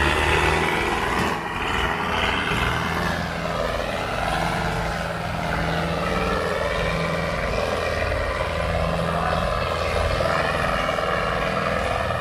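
Two farm tractors' diesel engines running hard under heavy load as they pull against each other in a tug-of-war, a steady loud din throughout.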